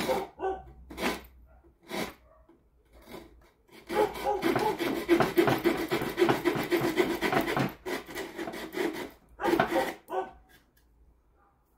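The small saw blade of a pliers-style multitool cutting into a softwood board. First come a few separate strokes, then about four seconds of fast, steady sawing, then a few last strokes before it stops.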